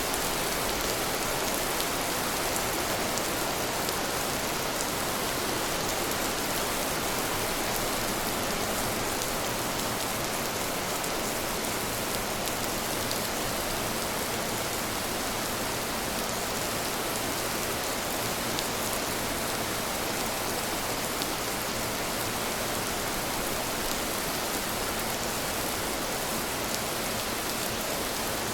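Steady rain falling: an even hiss with faint scattered drop ticks and no thunder.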